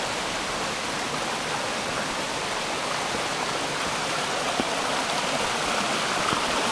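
Mountain stream rushing over rocks, a steady even rush of water that grows a little louder near the end.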